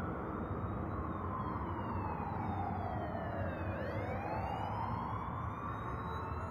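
Police siren wailing: one slow fall in pitch over about four seconds, then a rise again, over a steady low rumble.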